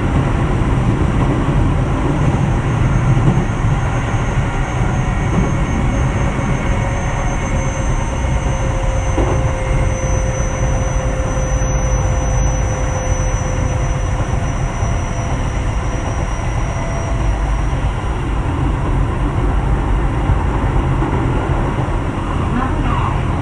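Keio 7000 series electric train running at speed, heard from inside the car: a steady rumble of wheels on rail, with faint whining tones from the motors and inverter that come and go.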